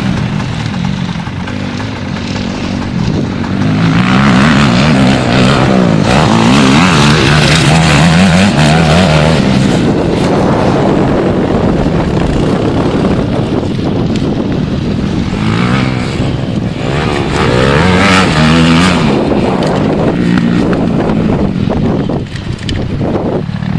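Motocross dirt bike engines revving hard, the pitch climbing and dropping again and again as the bikes accelerate and ease off.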